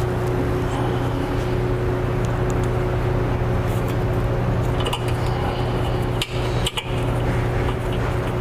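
Small metal spacers and bolts clinking as they are handled and set in place, a few sharp clicks about five to seven seconds in, over a steady low hum.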